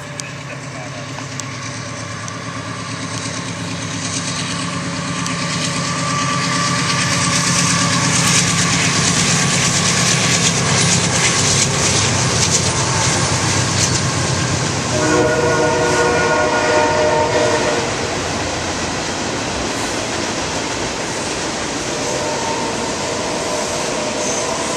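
CSX freight train led by GE C40-8W, EMD SD50-2 and GE C40-8 diesel locomotives passing. The engines rumble louder as they approach, then the freight cars roll by. About fifteen seconds in, a multi-note air horn sounds for about three seconds over the steady rumble and rattle of the cars.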